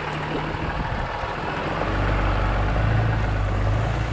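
Ram 3500's Cummins diesel engine pulling the heavy truck through a shallow pond, with water rushing and splashing around the tyres. The engine grows louder about two seconds in.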